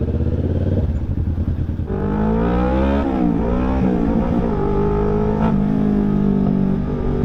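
Kawasaki Ninja 650 parallel-twin engine running through a Villain shorty slip-on muffler: a low pulsing idle, then revved from about two seconds in, the pitch rising and falling twice before holding steady at a higher engine speed.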